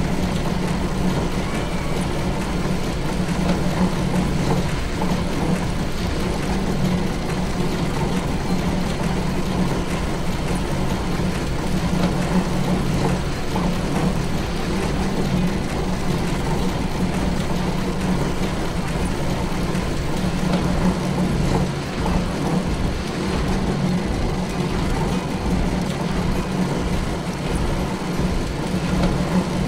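Factory machinery running steadily: a continuous rumbling noise with a constant low hum.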